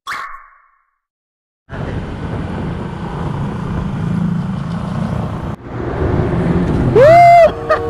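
A short swoosh, then about a second and a half of silence, then motor scooter riding noise picked up by a camera on the bike: steady engine, wind and road rumble with passing traffic. About seven seconds in, a loud short shout rises and falls over it.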